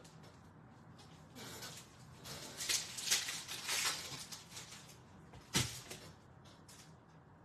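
A 2023-24 Upper Deck Synergy hockey card pack's wrapper crinkling as it is torn open and pulled off the cards, heaviest from about two to four seconds in. A single sharp knock follows, from the cards or pack meeting the table.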